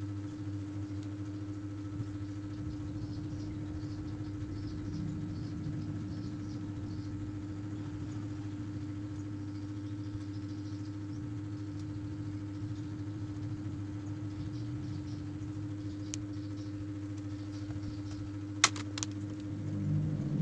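A steady mechanical hum with faint light ticking, and a couple of sharp clicks near the end.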